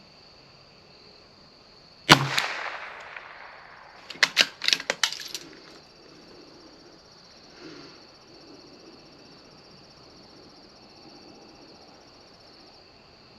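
A single .22 LR shot from a CZ 457 bolt-action rifle about two seconds in, with a tail that dies away over about a second, followed about two seconds later by a quick run of metallic clicks as the bolt is worked to eject the case and chamber the next round. Crickets chirp steadily underneath.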